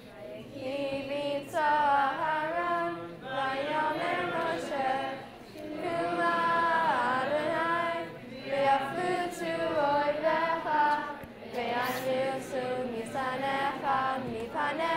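Congregation of schoolchildren singing a Hebrew prayer together, voices only, in sustained phrases with brief breaths between them.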